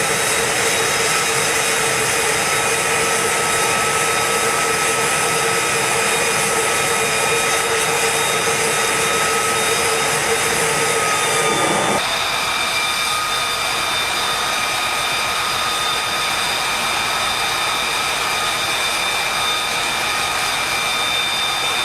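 F-35B jet engine running steadily: a high turbine whine over a loud rush, with several held tones. The tones shift abruptly about twelve seconds in.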